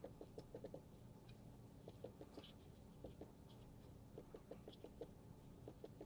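Near silence with faint, irregular small clicks and taps, several a second, some in quick clusters.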